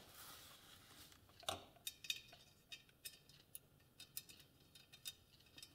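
Faint, irregular light metallic clicks and ticks from a loose steel wire spoke being swung around through the hub and set against the rim of a spoked motorcycle wheel.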